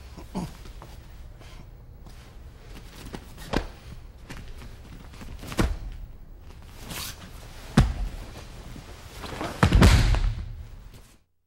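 Dull thuds and shuffling of bodies and feet on a training mat during a self-defence demonstration: several separate knocks, then a louder thump and rustle near the end, over a steady low hum.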